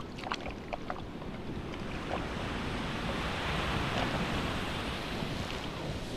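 Sea surf washing steadily, swelling to its loudest in the middle and easing again, with wind buffeting the microphone. A few light clicks in the first second.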